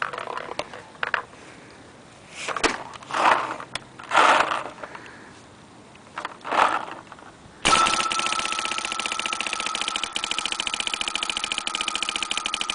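Aqua custom Dye PM7 paintball marker firing on semi-auto: a sudden, fast, even string of shots starting about halfway in, with a steady high whine running under it.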